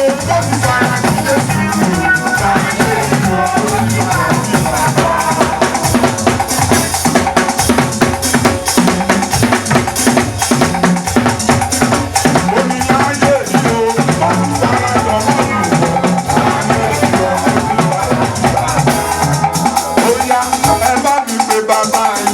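Music with drums and rattling shakers over bending pitched lines in the voice range.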